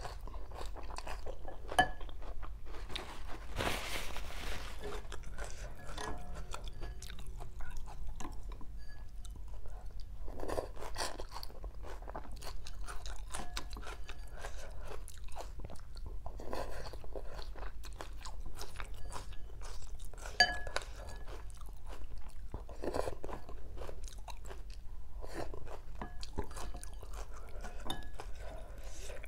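Close-up chewing and crunching of rice vermicelli with crisp raw vegetables such as bean sprouts and shredded water spinach. It is broken by a slurp about four seconds in and by light clicks of a spoon and chopsticks against a glass bowl.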